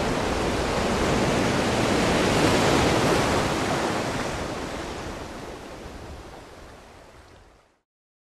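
Ocean surf washing onto a beach, a steady rush that fades away over the last few seconds and stops just before the end.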